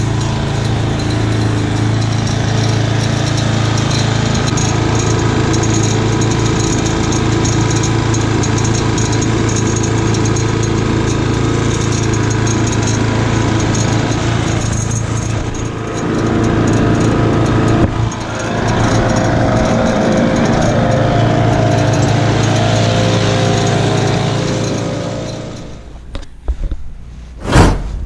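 Lawn mower's small engine running steadily, then dying away about 25 seconds in. A short loud whoosh near the end.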